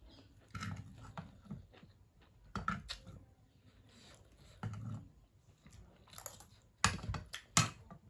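Close-up eating sounds: chewing with scattered sharp clicks, the two loudest near the end.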